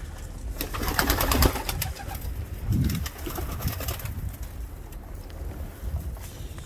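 Domestic pigeons in a loft, cooing low around the middle. About half a second in there is a burst of rapid clattering and rustling, likely wings and feet among the birds.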